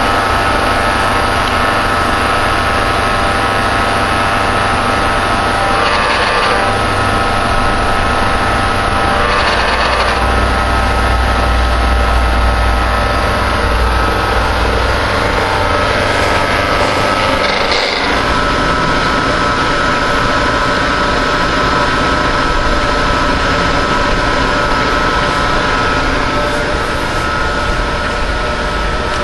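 Ex-Cell-O Model 602 vertical milling machine running: a steady motor hum with a constant whine from the spindle drive. The low hum changes abruptly about eighteen seconds in.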